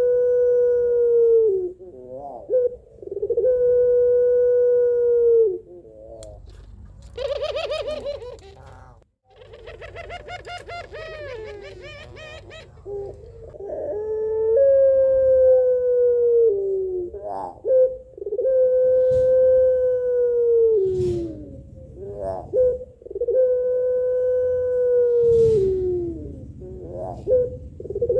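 Female Barbary dove (puter pelung) giving long, drawn-out coos, about five in all, each held steady for around two seconds before sliding down at the end. It is calling for a male. Near the middle there are two quieter, rapidly wavering trills.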